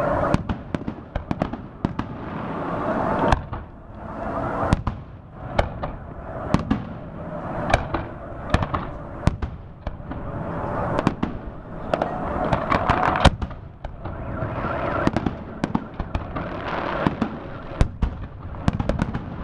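Fireworks display bursting: an irregular run of sharp bangs and crackles, several a second at times, over a rushing noise that swells and fades every few seconds.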